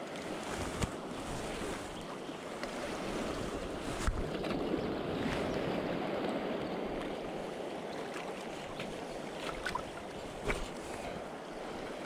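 Fast river water rushing over a stony bed in a steady rush, with a few short clicks scattered through it.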